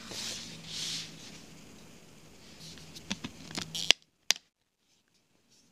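Hands handling a cardboard and plastic disc package: two soft swishes of hand sliding over card, then a quick run of clicks and taps, the last one the loudest, after which the sound cuts out.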